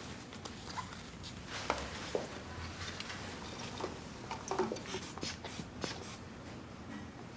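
Faint scattered clicks, knocks and rustles of things being handled, over a low steady room hum.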